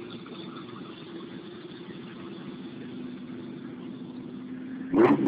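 Single-turbo Nissan RB26 inline-six, swapped into a Ford Mustang, idling steadily just after its first start on a newly fitted AEM ECU, then a sudden loud rev about five seconds in. Thin, cell-phone-recorded sound.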